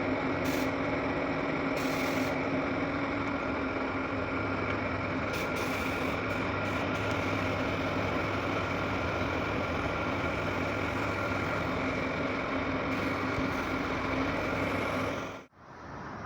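A steady mechanical drone with a constant hum, like a motor or engine running, cut off suddenly near the end and followed by a quieter steady noise.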